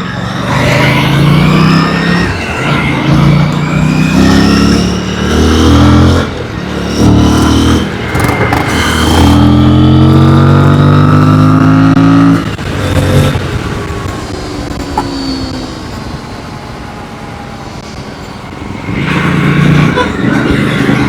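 Aprilia Tuono 457's parallel-twin engine accelerating hard through the gears. The pitch climbs and drops back at each upshift, then holds a long pull about ten seconds in. It then eases off to a lower, quieter run and picks up again near the end.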